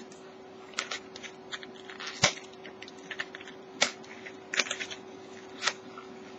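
A small cardboard box being handled and opened by hand: scattered light taps, scrapes and rustles of cardboard, the sharpest a little over two seconds in. A faint steady hum runs underneath.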